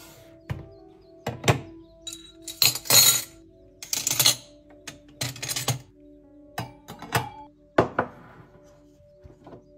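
Objects being handled and set down on a kitchen countertop: a string of knocks, clinks and short rattles, loudest a few seconds in, over soft background music.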